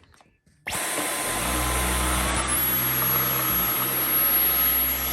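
Dyson V11 Outsize cordless stick vacuum switched on under a second in and running steadily on carpet, with a thin high-pitched whine over the rushing air.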